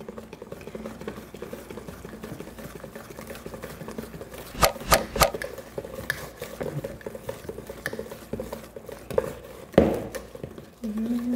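Wire balloon whisk mixing lemon-cake batter, flour and baking powder just added, in a mixing bowl. A steady quick patter of the wires against the bowl, with three louder knocks about halfway through and one more near the end.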